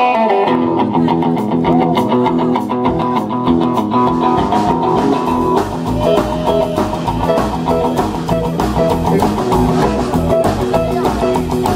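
Live rockabilly band playing an instrumental intro on electric guitar through an amp and upright double bass, with no singing. About four seconds in, low bass notes and a steady clicking beat come in under the guitar.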